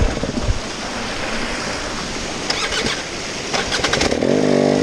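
Off-road 4x4 vehicle driving over rough ground: a steady rush of engine and tyre-on-rock noise, with a cluster of sharp knocks around the middle.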